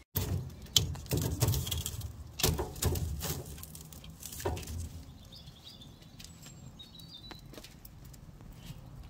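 Split logs being set down on the embers and metal grate of a charcoal grill: a series of wooden knocks and clatters over the first few seconds. After that it is quieter, with a few faint bird chirps.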